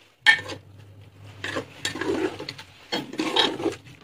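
Flat metal spatula stirring and scraping wet grated carrots and milk against the bottom of a steel pressure cooker, in a run of uneven scraping strokes.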